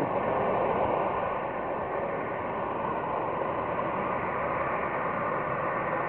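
Jet engines of a taxiing Ryanair Boeing 737 running at taxi power: a steady rushing noise with a faint high whine, a little louder in the first second.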